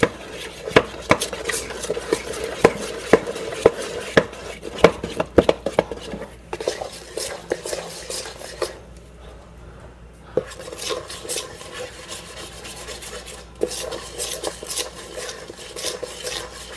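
A spoon stirring cake batter by hand in a stainless steel mixing bowl: a quick, irregular run of clinks and scrapes of the spoon against the metal, which eases off briefly about halfway through and then goes on.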